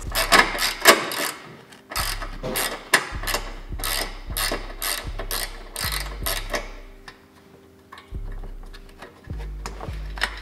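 Hand ratchet on an extension backing out an under-tray bolt: runs of quick pawl clicks, stroke after stroke, with a pause of about a second near the end before a few more clicks.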